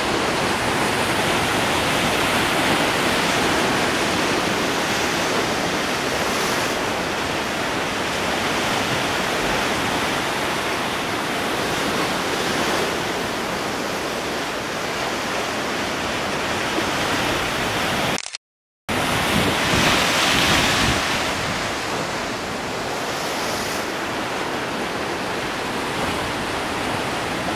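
Heavy storm surf breaking and churning against a rocky shore, a steady, loud rush of water. The sound cuts out completely for about half a second roughly two-thirds of the way through, then returns with a swell of surf.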